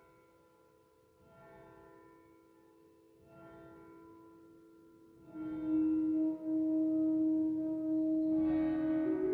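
Celtic-style flute playing slow, held notes in a reverberant church. It starts with a few soft, breathy notes over a lingering tone. About five seconds in comes a much louder long low note, and near the end the melody moves to a higher note.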